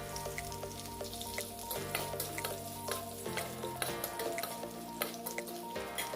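Crushed garlic and dried red chillies sizzling and crackling in hot oil as a tempering, stirred in the pan, with many small pops throughout.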